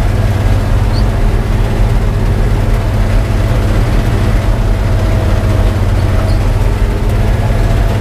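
New Holland TR70 combine's Ford gasoline V8 running steadily, with the combine's drives turning, heard from the operator's seat: an even, unchanging drone.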